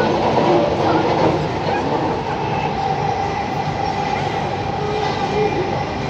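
Delhi Metro train running at speed, heard from inside the carriage: a steady rumble and rush of wheels on rail with a faint steady whine.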